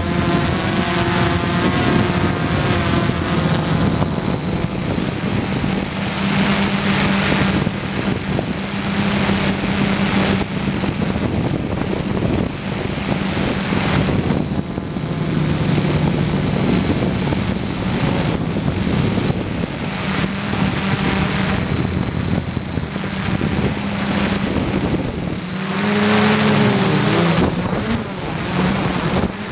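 Gaui 330X quadcopter's four brushless motors and propellers running in flight, a steady hum whose pitch shifts up and down as the throttle changes. A rushing noise of propeller wash sits over the onboard camera's microphone, and near the end the motor pitch wavers and climbs briefly.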